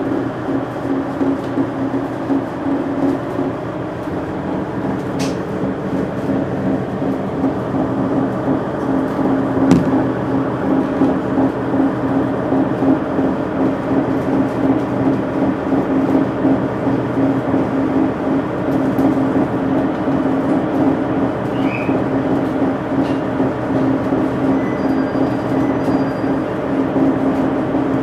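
KiHa 110 series diesel railcar's DMF14HZ diesel engine idling while the car stands still, a steady low hum heard inside the passenger cabin, with a couple of faint clicks.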